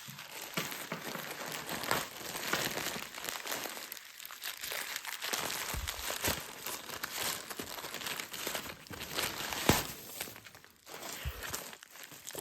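Packaging being crinkled and handled as it is opened, with irregular sharp crackles and some tearing; the loudest crunch comes about ten seconds in.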